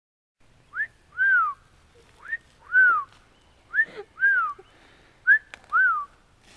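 A person whistling a two-note call: a short upward slide followed by a longer note that rises and falls. The call is repeated four times, about every second and a half.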